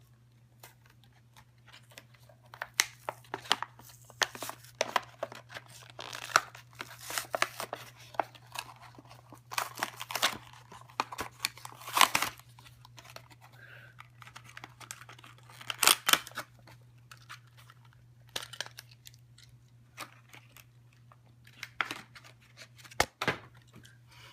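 Packaging of a Mattel die-cast toy car being torn and crinkled open by hand, in irregular rips and crackles, loudest in the middle. A steady low hum runs underneath.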